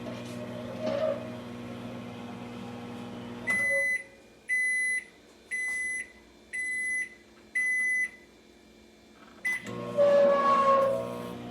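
BLACK+DECKER EM720CB7 microwave oven running with a steady hum that stops about three and a half seconds in. Five beeps follow, about a second apart, signalling the end of the heating cycle. Near the end there is a click followed by a louder sound.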